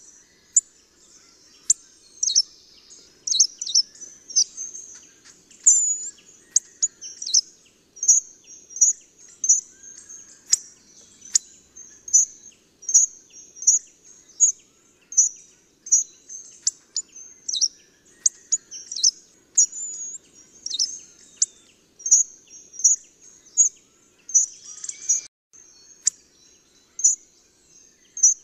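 Hawfinch calling: a long series of short, sharp, high-pitched notes, about one to two a second, a few of them sweeping quickly downward.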